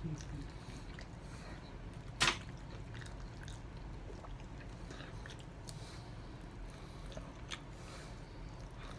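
A person chewing and biting into chicken wings close to the microphone, with scattered small mouth clicks. One louder sharp click comes about two seconds in.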